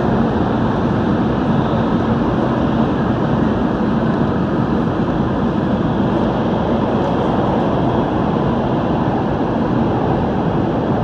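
A Downtown Line C951 (Bombardier MOVIA) driverless metro train running at speed through a tunnel, heard from inside the front car: a steady, dense rumble of wheels on rail and traction equipment.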